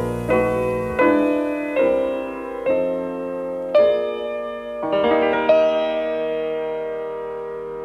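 Piano music: a slow run of chords struck roughly once a second, ending on a long chord left ringing and fading.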